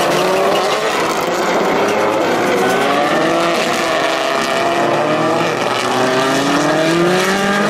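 Several rallycross Supercars' turbocharged four-cylinder engines running hard together, each rising in pitch as it accelerates and dropping back at gear changes, in repeated overlapping sweeps.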